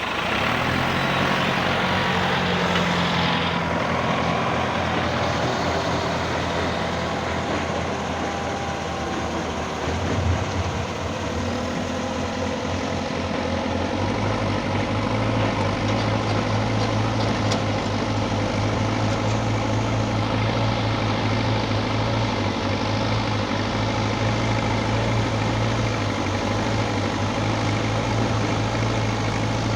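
Heavy diesel engines of an excavator and dump truck running steadily. Their low note changes about halfway through and then holds steady, with a single knock of material or machinery at about ten seconds.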